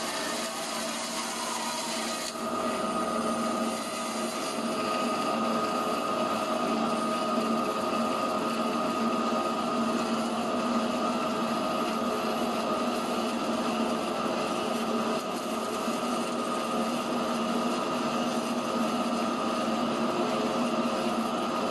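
CNC foam cutter's abrasive cutting wire sawing through rigid PUR foam: a steady rasping over a steady machine hum. About two seconds in, a high hiss drops out and the sound grows a little louder.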